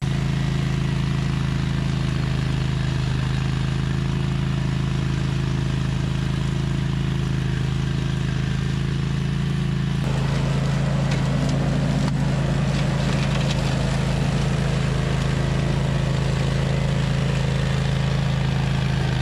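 OREC RM983 ride-on mower's engine running at a steady speed, with a harsher, noisier edge coming in about halfway through.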